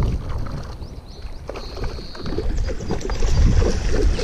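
A hooked trout splashing and thrashing at the surface of shallow creek water, over a low rumble of wind on the microphone.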